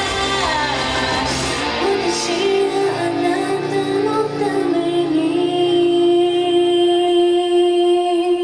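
Female vocalist singing a J-rock song over rock accompaniment; from about halfway through the backing thins and she holds one long, steady note as the low end of the music fades away.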